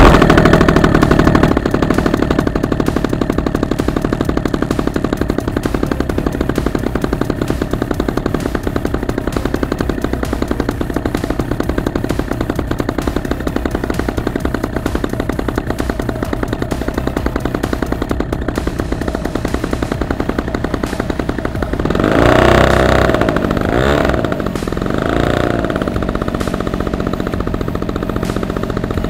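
Model-airplane gasoline engine converted from a brush cutter, driving a 17x8 propeller, starts with a hand flip of the prop and then runs steadily with a clattering exhaust. A little over 20 seconds in it is revved up and back down twice.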